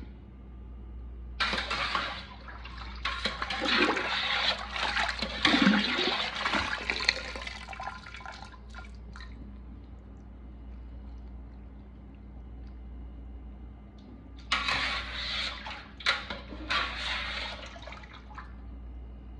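Wet boiled chitterlings tipped from a wire skimmer into a steel pan, with water splashing and draining off them. It comes in two spells: a long one near the start and a shorter one after a quieter pause, over a steady low hum.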